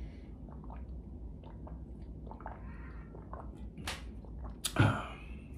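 A person chewing a double cheeseburger, with soft wet smacking and clicking mouth sounds. A brief, louder voiced sound comes near the end.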